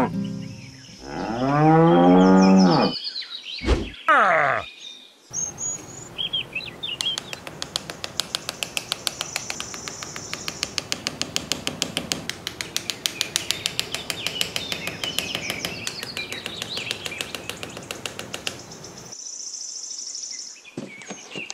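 A cow mooing twice in the first three seconds, then a long run of even, rapid clicking, several clicks a second, with birds chirping over it; the clicking stops shortly before the end.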